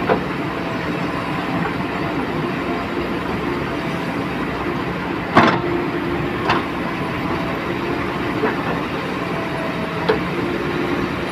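JCB backhoe loader's diesel engine running steadily, with a few sharp knocks on top, the loudest about five and a half seconds in.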